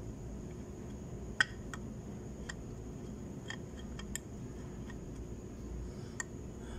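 Scattered light clicks and taps, about seven in all, from small engine parts being handled and fitted back into place on a scooter engine. The sharpest click comes a little over a second in, over a faint steady hum.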